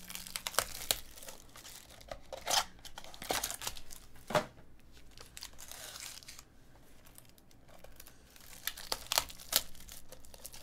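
Foil trading-card packs being torn open and crinkled by hand. The crackling comes in irregular bursts, with a quieter stretch in the middle.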